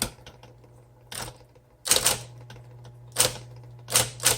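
1958 Smith Corona Electric portable typewriter being typed on: type bars strike the paper singly and in short runs of two or three, at an unhurried pace. The steady hum of its running electric motor sits underneath.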